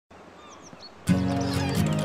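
Faint outdoor ambience with a few brief bird chirps, then about a second in, background music starts suddenly with soft held notes.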